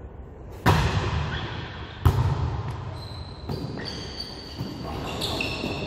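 A volleyball being struck twice, sharp smacks about a second and a half apart that echo around the gym, with the first the loudest. Brief high squeaks follow in the second half.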